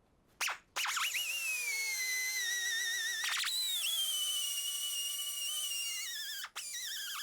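Die grinder with a coarse grit fiber disc grinding rust pitting off a steel toolbox latch plate. It gives a high whine whose pitch sags as the disc bears on the metal. The whine breaks and climbs again just past three seconds, then settles lower, with a brief cut-out near the end.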